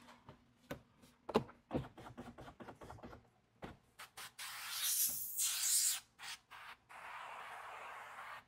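A towel rubbing and squeaking on a truck's door window glass, then a sprayer hissing as it wets the glass with solution: a few short squirts, a long loud spray about five seconds in, and a steadier spray near the end.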